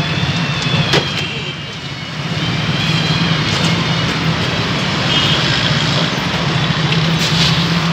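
A steady low engine-like drone under a broad wash of street noise, with a single sharp click about a second in.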